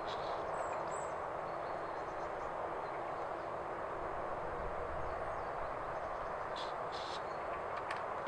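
Steady, even outdoor background noise with a few faint, short high-pitched chirps and scratches on top.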